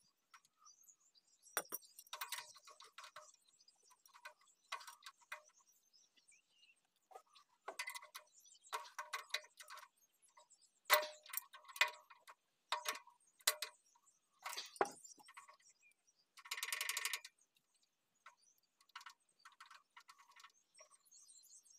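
Metal hand tools clicking and clinking on the rocker gear of a small diesel engine as the loose tappet is tightened and set, in irregular clusters of sharp ticks. A brief buzzing rattle comes about three-quarters of the way through.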